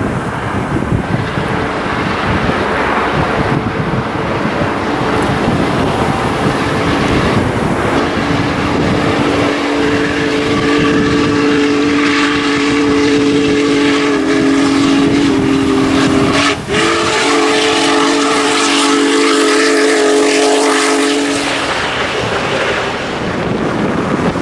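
Union Pacific Big Boy steam locomotive passing with a rush of running and exhaust noise, then sounding its chime steam whistle. The whistle gives a long blast of about seven seconds and, after a brief break, a second blast of about five seconds.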